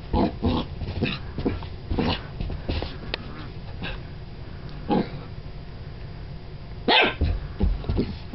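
Golden retriever puppy barking in short, high yaps, a scattered run of about ten with pauses between, the loudest about seven seconds in: excited play barking.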